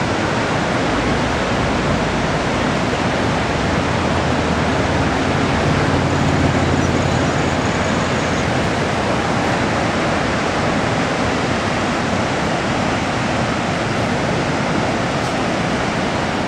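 Steady, unbroken rushing of the Horseshoe Falls at Niagara, a thick wash of falling water with no distinct events.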